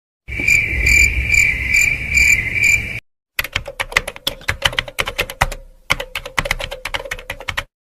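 Two sound effects in turn: first a high, pulsing chirping like crickets, about three pulses a second; then, after a brief gap, rapid clicking of typing on a computer keyboard, with a short pause partway through.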